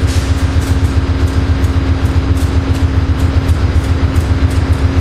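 A steady, loud low rumble with a constant hum, like a large engine idling.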